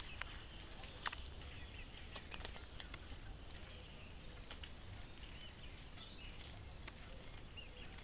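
Faint outdoor ambience: a steady soft hiss with a few brief, high bird chirps, the sharpest about a second in and again near two and a half seconds.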